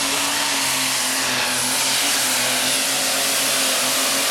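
Super stock John Deere pulling tractor's engine running flat out under full load as it drags the weight sled. The sound is a loud, steady drone that holds one pitch.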